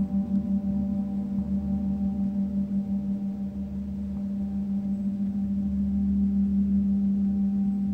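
Meinl Eight Corners of Heaven mirror gong played softly with a felt gong mallet: a sustained low hum with several steady overtones, wavering rapidly in level and swelling a little about five seconds in.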